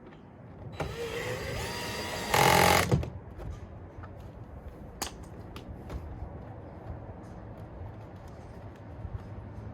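Cordless drill driving a screw: its motor whines up in pitch for about a second and a half, then gives a short, louder burst. Light clicks follow.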